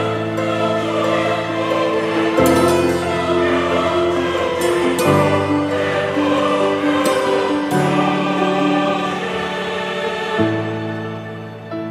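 Slow background music with a choir singing long, held chords that change about every two and a half seconds.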